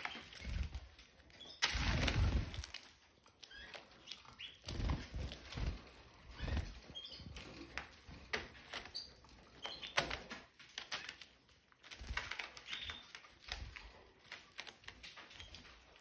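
Red factor canaries moving about a cage floor: wings flutter, loudest about two seconds in, among scattered pecking and scratching clicks on seed dishes and newspaper, with a few short chirps.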